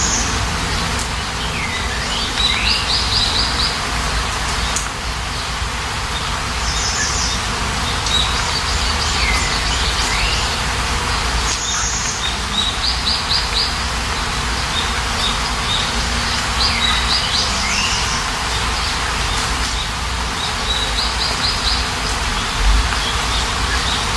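Steady rain hiss with a songbird calling over it again and again: a short dipping whistle, then a quick run of about five high notes, repeating every few seconds.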